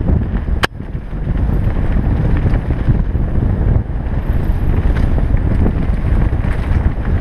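Wind buffeting the action camera's microphone over the rumble and rattle of a Specialized Enduro carbon mountain bike riding fast down a dirt trail. A single sharp click sounds a little over half a second in.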